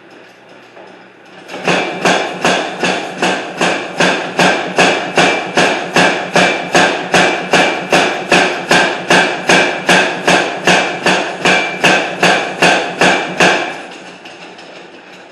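Hammer blows on a loaf of iron being forged into a square bar, struck at a steady rhythm of about two and a half a second with a ringing note on each blow. The blows start about a second and a half in and stop shortly before the end, over a steady background rush.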